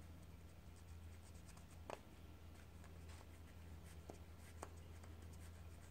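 Faint scratching with a few light ticks: a small flat screwdriver working around a motorcycle brake caliper's pistons, cleaning the grime off them.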